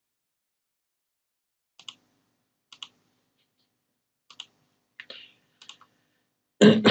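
Computer mouse button clicks: about five short, sparse clicks, each a quick double tick of press and release, starting after a moment of silence.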